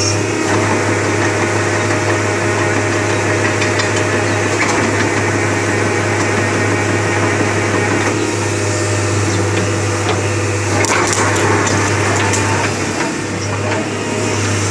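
Hitachi UH055-7 hydraulic excavator's diesel engine running steadily with a constant low hum, with a few short clicks about two-thirds of the way through.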